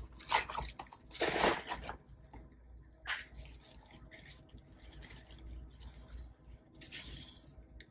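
Plastic bubble wrap crinkling and rustling as it is pulled open, loudest in the first two seconds. Quieter rustling of a soft cloth bag being handled follows, with brief crinkles about three seconds in and near the end.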